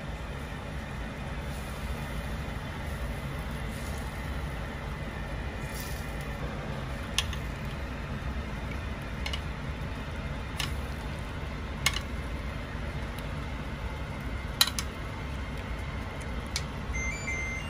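A metal spoon and fork clinking sharply against a glass baking dish a handful of times while baked chicken is basted in its broth, over a steady low hum. A short electronic jingle starts near the end.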